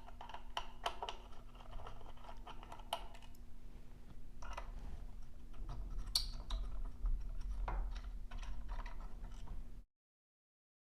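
Light metallic clicks and scrapes of a 5/32 inch hex key turning hex screws out of a pulley assembly, with small parts being handled; the sound cuts off suddenly near the end.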